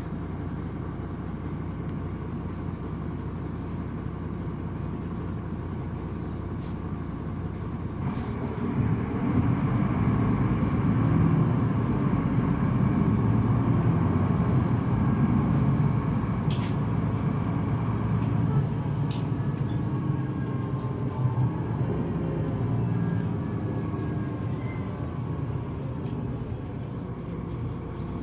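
Solaris Urbino 18 articulated bus's DAF six-cylinder turbo diesel running steadily at low revs, then from about eight seconds in running louder under load for some twelve seconds before easing off again.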